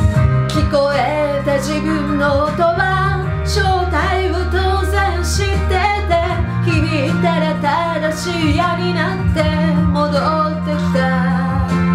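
A woman singing a slow melody over instrumental accompaniment with long-held low notes.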